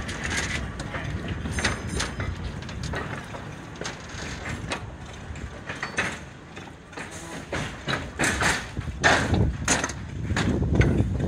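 Narrow-gauge (2 ft 3 in) railway goods wagons rolling slowly past, with irregular clicks, clanks and knocks from wheels and couplings and a low rumble that grows louder near the end.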